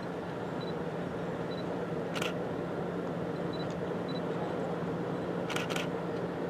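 Camera running noise: a steady low hum under an even hiss. One sharp click comes about two seconds in, and two quick clicks come near the end.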